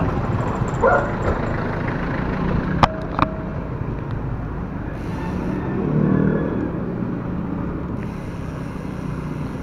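Steady road traffic noise, with a motor vehicle passing about six seconds in and two sharp clicks about three seconds in.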